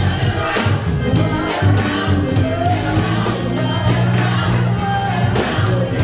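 Live band music with singing: drums and bass under sung vocals.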